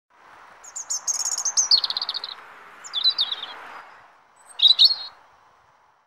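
A songbird singing three phrases of rapid high notes: a longer one that falls in pitch, then two short ones, over a faint steady background rush.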